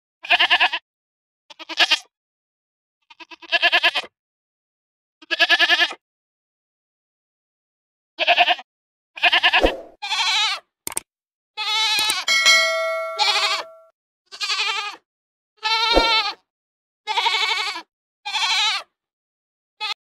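A string of about a dozen separate goat bleats, each a short quavering call, with clean silence between them and a pause of about two seconds near six seconds in. Around twelve seconds in, a longer call runs together with a steady ringing tone.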